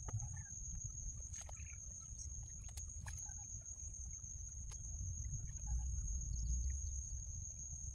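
A few sharp plastic clicks and knocks, as the small crab boxes on a floating pond rack are handled and checked, over a steady low wind rumble on the microphone and a steady high-pitched whine.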